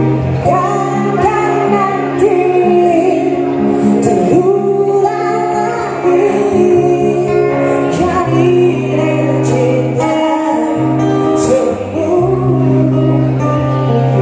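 A live song: a singer's voice over acoustic guitar, amplified through PA speakers.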